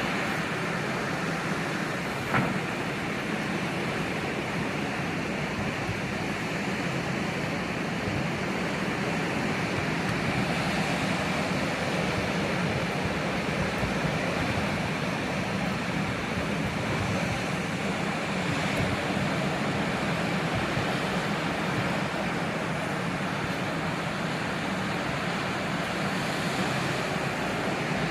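Sea surf washing on the shore as a steady rushing noise with gentle swells in loudness, and a single brief click about two seconds in.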